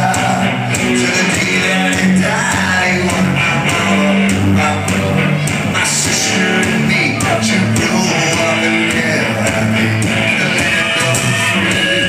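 A live rock band playing loud and steady: electric guitars and drums, with a singer.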